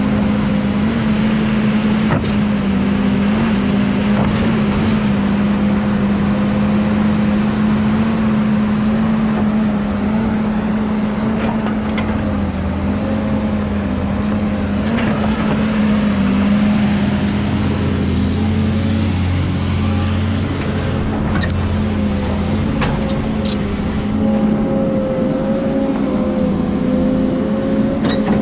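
Kobelco 210 excavator's diesel engine running steadily under working load as it digs out tree roots, with scattered sharp knocks.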